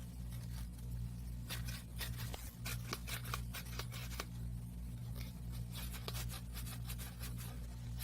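Folded paper spring toy being handled: light, irregular paper crinkles and clicks over a steady low electrical hum.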